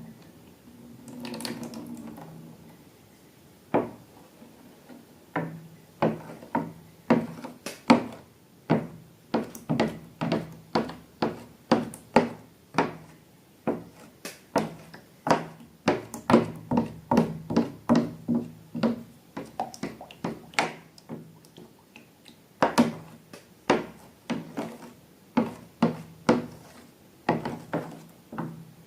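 A long series of sharp taps and clicks, about one or two a second, from items being handled for slime making, with a low steady hum under many of them.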